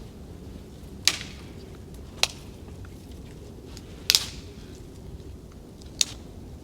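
Four sharp knocks or cracks, irregularly spaced about two seconds apart, over a steady low background rumble.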